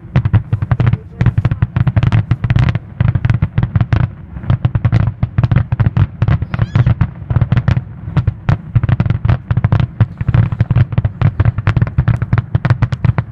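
Fireworks grand finale: a rapid, continuous barrage of aerial shell bursts, several bangs a second with a heavy low rumble between them.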